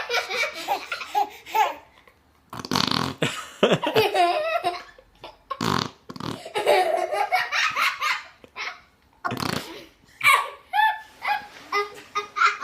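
A baby blowing raspberries, making fart noises with her lips several times, each met by bursts of laughter.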